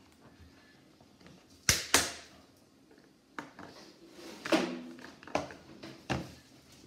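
A series of sharp clicks and knocks of hard household objects being handled: two loud ones close together about two seconds in, then a few more spaced out.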